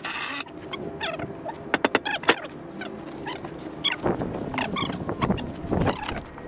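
Hand work on a building job: a few sharp knocks and clicks about two seconds in, with squeaks and rustling around them.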